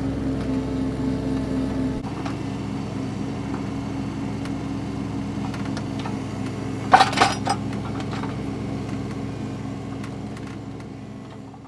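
Mini excavator's diesel engine running steadily while its bucket pushes dirt and rocks. A short clatter of rocks and metal comes about seven seconds in, and the sound dies away near the end.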